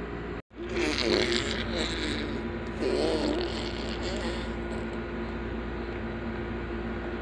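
A baby's faint cooing over a steady background hum, with a short rustling noise about a second in.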